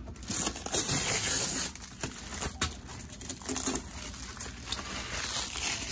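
Clear plastic wrapping crinkling and tearing as it is pulled off a new headlight assembly, loudest for about a second near the start, then in scattered crackles.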